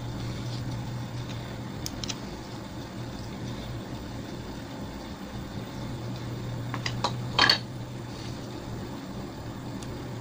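A few sharp metal clicks and taps as a metal rod is worked through the hole of a small metal wick cap, the loudest a brief clatter about seven and a half seconds in, over a steady low hum.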